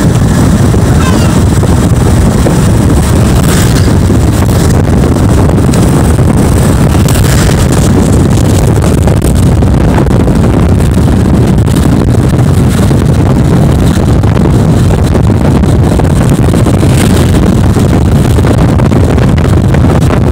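Steady drone of a vehicle's engine and road noise while driving at speed, heard from inside the vehicle, with the low rumble loudest and no change in pace.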